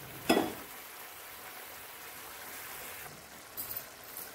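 A lid set onto a kadai with a short ringing knock about a third of a second in, then the egg curry simmering under the lid with a steady hiss. A few faint clicks come near the end.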